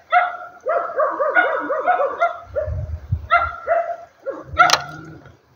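A dog whining and yipping: a run of short, pitched cries that rise and fall about five times a second, with a sharp click a little before the end.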